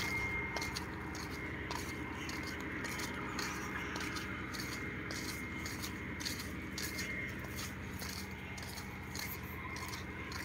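Irregular crunching and scraping, like footsteps on dry sandy ground and dry palm fronds brushing past, over a steady low hum.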